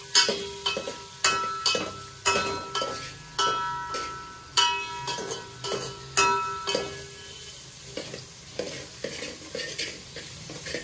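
A metal spoon stirring tomatoes and shallots frying in oil in a large metal pot, knocking against the pot so it rings, over a steady sizzle. The knocks come about every half second to a second and grow weaker in the last few seconds.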